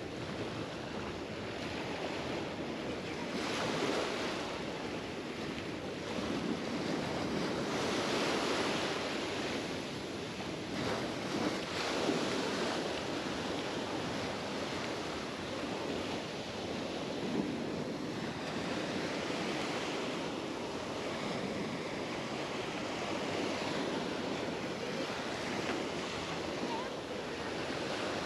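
Mediterranean surf breaking and washing up the beach, swelling every few seconds as each wave comes in, with a little wind on the microphone.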